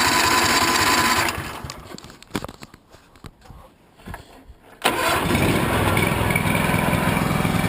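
Ditch Witch two-cylinder gasoline engine being started: a first burst of cranking stops after about a second, then after a short pause with a few clicks the engine catches with a sudden burst and settles into steady running. It is starting on a choke in the cold, and it runs on both cylinders with a freshly cleaned, formerly carbon-fouled spark plug, which the owner says sounds great.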